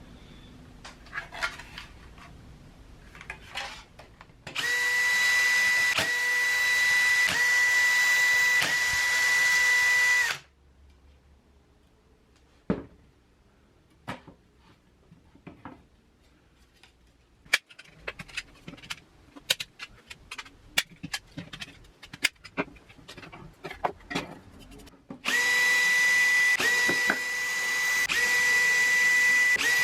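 A small power tool's motor running at a steady high pitch in two runs of about six seconds each, with brief dips in each run. Between the runs come scattered clicks and knocks of parts being handled.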